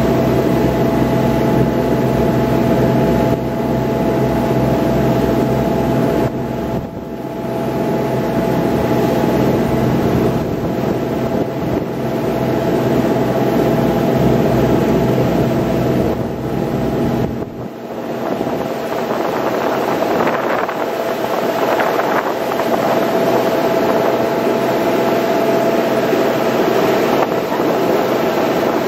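Passenger shuttle boat's engine running steadily at cruising speed, a constant drone with a few held tones, mixed with wind and water rush. A low rumble of wind on the microphone falls away about two-thirds of the way through.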